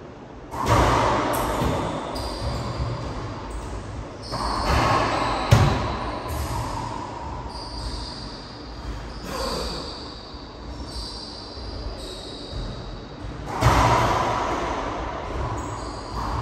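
Racquetball rally: the ball is struck by racquets and smacks off the court walls, a hit every few seconds, each one ringing out in the enclosed court. The sharpest crack comes about five and a half seconds in.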